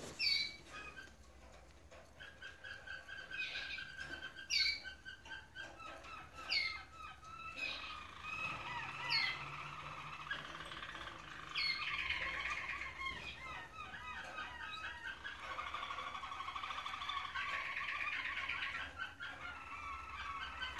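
Roller canaries singing: long, rapid rolling trills, broken in the first half by several sharp downward-sliding notes.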